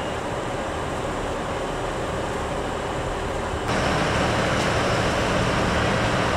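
KiHa 85 series diesel railcar's Cummins diesel engines idling steadily while the train stands at the platform, a constant low hum. It grows louder and deeper from nearly four seconds in, heard close beside the bogie.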